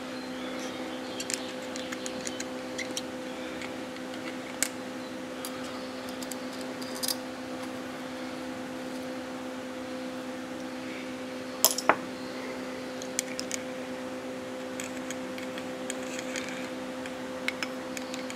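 Scattered light metallic clicks and taps of small turbocharger rebuild parts being handled and fitted onto the shaft by hand, with two sharper clicks close together about two thirds of the way through. A steady electrical hum runs underneath.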